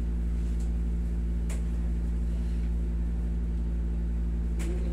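Steady low hum of a window-type air conditioner running, with a faint click about a second and a half in.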